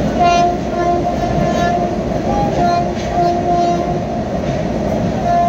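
A train running on the tracks with a steady loud rumble, while a high tone comes and goes in short stretches.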